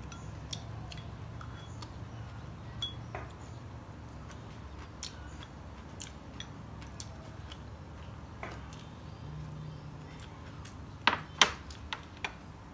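Chopsticks clicking and scraping against a porcelain rice bowl while eating: scattered light clinks, with a few louder knocks near the end, over a steady low hum.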